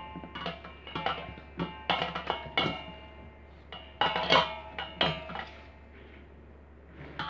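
Large steel mixing bowl being knocked and scraped by a hand working khoya and flour together, each knock leaving a short metallic ring. The knocks come in an irregular run for about five seconds, then stop until one more near the end.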